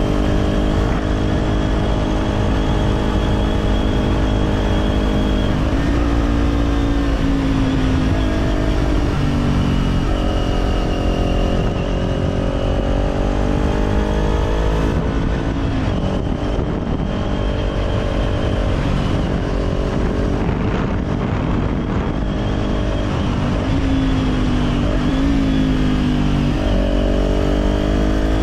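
Kawasaki Z400's parallel-twin engine through an Orion Katya slip-on exhaust, ridden on the road. The note climbs with throttle and steps down at gear changes several times, and is rougher and less even through a stretch in the middle.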